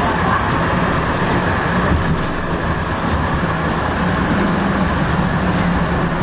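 City tram running along its line, heard from inside the car: a steady rumble of wheels on rails with a constant low motor hum.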